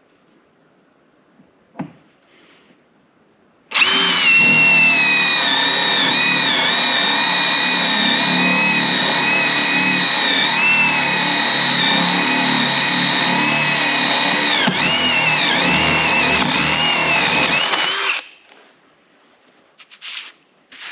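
Mac Tools MCF886 1/4-inch brushless impact driver spinning a drill bit through a hole for about 14 seconds, starting about 4 seconds in. It is a steady high motor whine that dips in pitch briefly a few times as the bit loads up, then stops.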